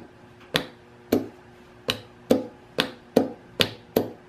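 Mower starter solenoid clicking each time a 12-volt lead is tapped to its terminal: eight sharp clicks, about half a second apart and coming a little faster toward the end. There is no continuity beep from the meter, because the solenoid pulls in but its contacts don't connect the two posts. It is a bad solenoid.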